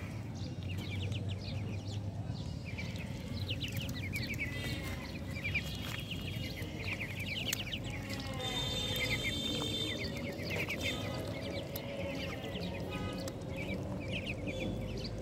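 A flock of young Muscovy ducks peeping: many short, high chirps overlapping one another throughout.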